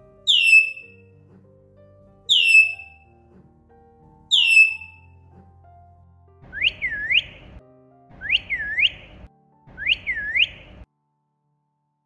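White-bellied caique parrot giving three clear whistles that fall in pitch, about two seconds apart: its natural whistle. Then come three quicker squeaky two-note chirps with a rasp under them, the caique's flirting call, over soft background music.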